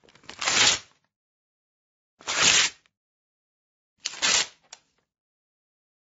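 Paper being torn, three separate short rips about two seconds apart, with silence between.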